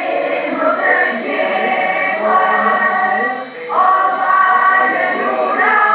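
A group of voices singing a Catalan caramelles song together, holding long notes and moving to a new note a little under four seconds in.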